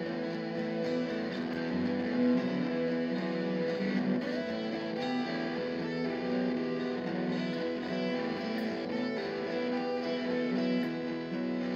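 Crafter guitar improvising in the key of E through effects pedals and a looper: picked notes over sustained, layered tones.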